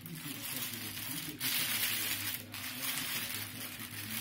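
Thin plastic protective bag rustling and crinkling as it is pulled off a computer monitor, getting louder about a second and a half in, over a low steady hum.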